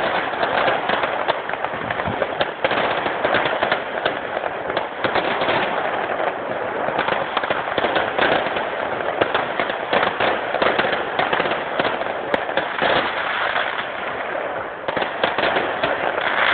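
Fireworks display: a dense, continuous crackle of many rapid pops and small bursts.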